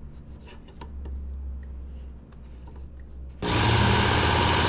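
Work Sharp Ken Onion belt sharpener running with a low hum, then about three and a half seconds in a 14C28N steel knife blade is drawn across the moving abrasive belt: a sudden, loud, steady grinding hiss.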